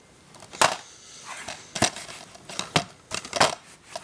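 Plastic DVD packaging being handled: sharp irregular clicks and crinkles, four loud snaps about a second apart among softer rustling.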